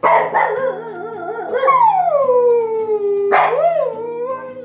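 Siberian husky howling: a wavering howl that slides down into one long falling note, then a shorter howl that rises and falls near the end.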